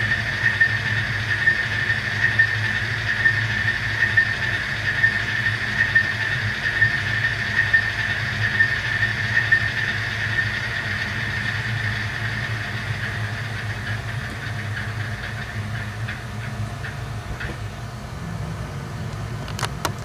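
Sound decoder in an HO-scale Kato GE AC4400CW model locomotive playing a diesel engine idling through the model's small speaker: a steady low hum with a steady high whine that fades out about halfway through. A few faint clicks near the end.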